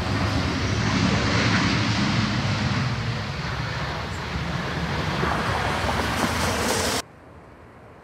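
Jet engines of an easyJet Airbus A320-family airliner moving along the runway: loud, steady jet noise that builds over the first second, then cuts off abruptly about seven seconds in.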